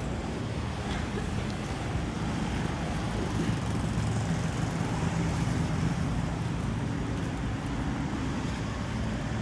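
A motor vehicle travelling on the road: steady engine and road noise, a little louder around the middle.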